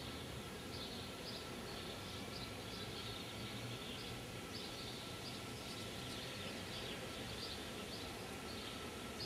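Small birds chirping outdoors: short, high chirps repeating irregularly, about two or three a second, over a steady background hiss and rumble.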